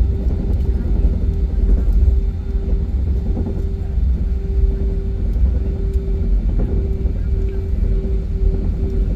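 Airliner cabin noise: a steady low rumble from the engines and airflow, with a droning hum that begins to pulse on and off about two-thirds of the way through.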